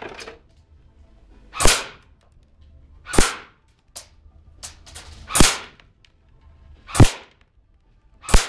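Airsoft gun shooting a plastic DVD case: five sharp cracks about a second and a half apart, with a few lighter clicks between them.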